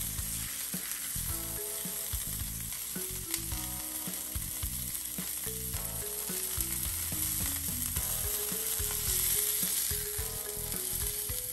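A piece of London broil beef searing in hot oil and butter in a cast iron skillet, sizzling steadily as it is browned on its edge.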